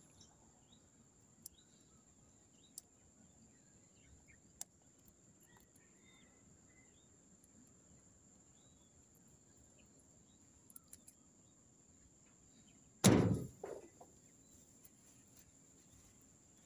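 Quiet outdoor ambience: a steady high-pitched insect drone with scattered faint bird chirps and small clicks. About thirteen seconds in, a loud sudden thump, followed by a smaller one.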